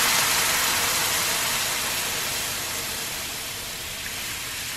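Hot frying pan sizzling as a blue cheese and cream sauce is poured into it, the hiss steadily dying down.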